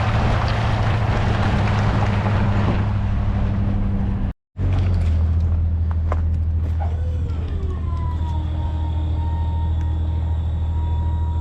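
Truck engine running steadily, with noise of tyres in mud, cut off briefly about four seconds in. After the cut the engine keeps running and a high whine comes in, sliding down in pitch and then holding steady.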